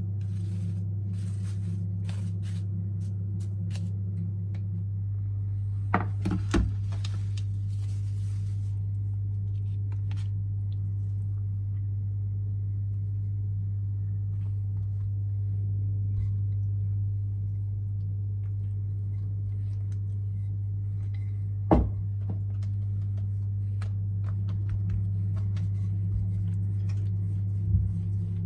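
A steady low hum throughout, with a thin plastic bag crinkling as it is pulled over a tray of dough in the first several seconds. A few sharp knocks on the kitchen counter follow, the last as the wooden rolling pin is put to the dough near the end.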